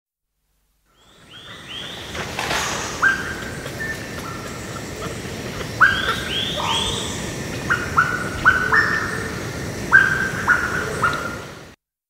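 Celebes crested macaques giving brief, shrill calls: a string of short calls, each with a sharp start and a slight drop in pitch, most of them in the second half. Cicadas stridulate steadily in the background.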